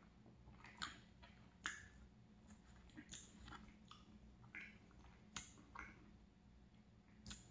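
Faint, close-miked mouth sounds of a person chewing a soft mini donut: scattered small wet clicks and smacks of lips and tongue, roughly one a second.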